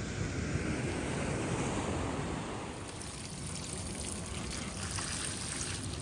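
Sea waves washing onto a beach: a steady rush of surf that swells over the first couple of seconds, then thins out.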